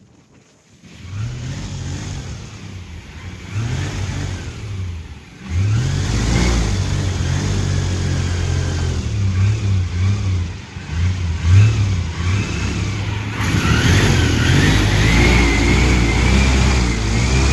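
Airboat engine and propeller revving up and down, nearly quiet at first and building after about a second. It runs louder and steadier through the second half.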